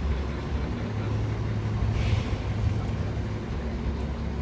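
Steady low rumble of a running vehicle, with a brief hiss of noise about two seconds in.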